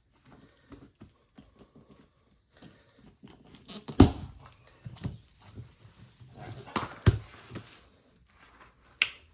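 Winch strap around a golf cart tire being released by hand: a run of small clicks and rattles with a few sharp clacks, the loudest about four seconds in and again around seven seconds in.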